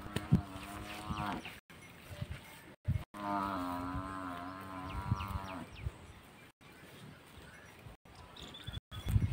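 Cattle mooing: two long, steady calls, the first at the start and the second about three seconds in, held for over two seconds with a slight fall in pitch.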